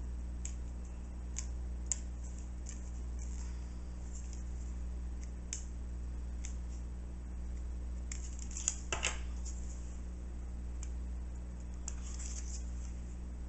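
Faint scratching and light clicks of a pen marking a wooden paint stick by hand, over a steady low hum, with a short clatter about nine seconds in.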